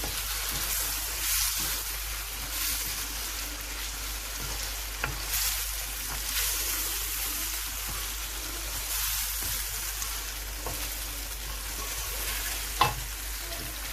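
Chicken with spices and onion-tomato paste sizzling in oil in a pan as it is stirred, with a couple of sharp knocks, the loudest near the end.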